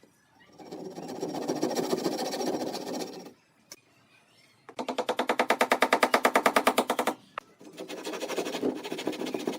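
A handheld power tool run in three bursts of two to three seconds each, with short pauses between them; the middle burst is a fast, even rattle.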